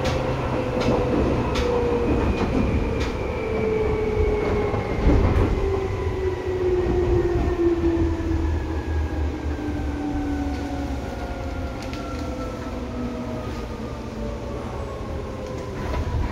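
Seibu 2000 series electric train running, heard from inside the car: the whine of its field-chopper-controlled traction motors and gearing falls steadily in pitch as the train slows, over a low running rumble. Occasional sharp wheel clicks over rail joints.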